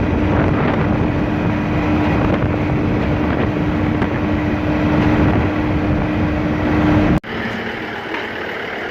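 Tractor engine running steadily under load, with a steady drone and wind noise on the microphone. About seven seconds in the sound cuts off abruptly and gives way to a quieter engine idling at a lower pitch.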